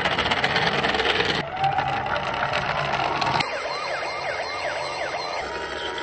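Electronic sirens of battery-powered toy ambulances, changing abruptly from one toy's siren to the next. The first second and a half is dense clicking; then a slow gliding wail; then about two seconds of a rapid yelp sweeping up and down over and over.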